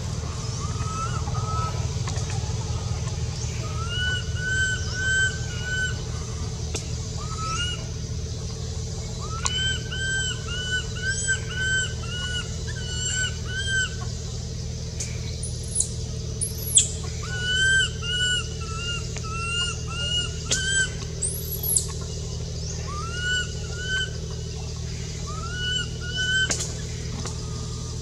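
Baby macaque crying: short squeaky calls, each rising and falling, repeated in runs of four to six, starting about four seconds in. A steady low hum runs underneath.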